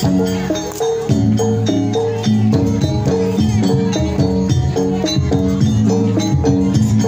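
Live gamelan-style music for a jaranan horse dance: tuned metal percussion plays a quick, repeating pattern of notes over drums, with many sharp percussion strokes.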